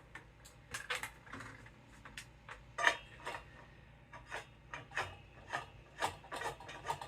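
Sections of a home dance pole being screwed together by hand: a series of short, irregular scraping and clicking strokes as the threads turn.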